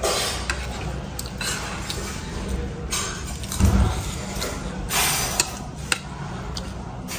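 Metal spoon and fork scraping and clinking against a plate of biryani, in short scrapes with a few sharp clicks, and one dull thump a little past halfway.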